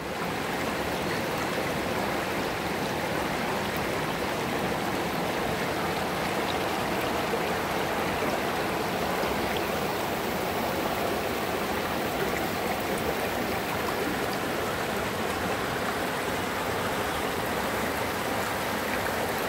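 Shallow rocky creek running over stones and small riffles: a steady, even rush of water close to the microphone.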